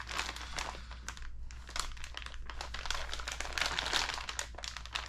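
Clear plastic kit parts bag crinkling as it is turned over in the hands, with small irregular clicks as the parts inside shift.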